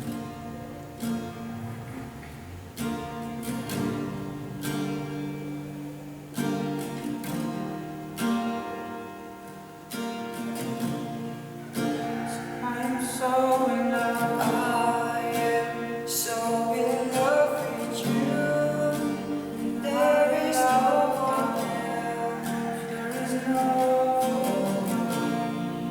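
Music: strummed acoustic guitar, with a voice singing a melody over it from about halfway in.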